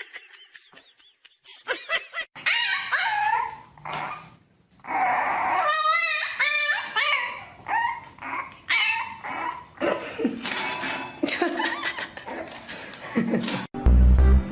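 A dog whining and yipping: a long run of high calls that bend up and down in pitch, starting about two seconds in.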